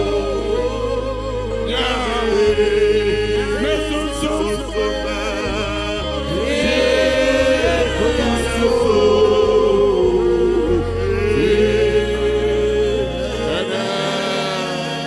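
Gospel worship song sung by several voices over held low bass notes; the bass drops out near the end.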